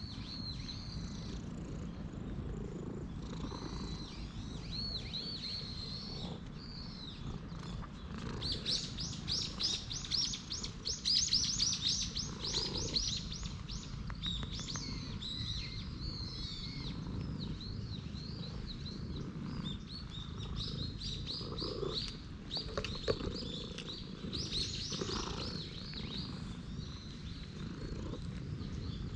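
Small birds chirping and twittering, with a fast run of repeated high notes from about 8 to 13 seconds in and another busy spell near the end, over a low steady rumble.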